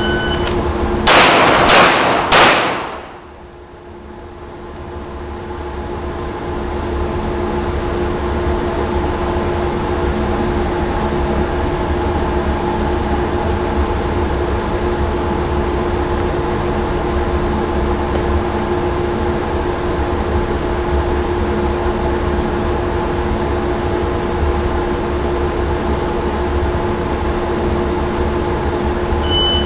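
A shot timer beeps, then a pistol fires three quick shots about a second later. The indoor range's ventilation runs as a steady hum for the rest, and the timer beeps again near the end.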